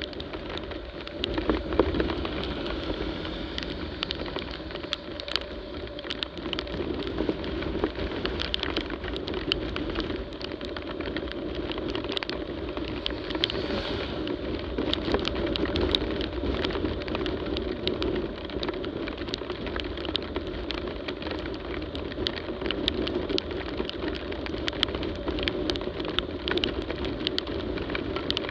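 Rain striking the camera and motorcycle while riding at speed, heard as many sharp raindrop ticks over a steady rush of wind, wet tyres and the engine's drone.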